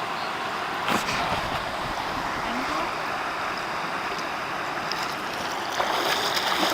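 Steady rush of flowing river water, with a single knock about a second in; near the end the water sound grows louder and brighter.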